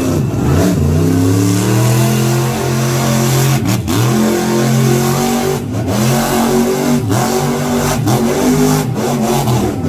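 Mega truck engine revving hard, its pitch climbing and falling again and again as the truck drives through the dirt, with a few very brief drops in the sound.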